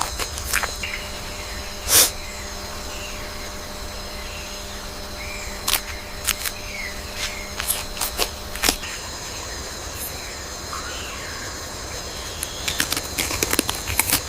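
Forest ambience: a steady hiss with scattered sharp snaps and rustles, the loudest about two seconds in, and faint short chirps.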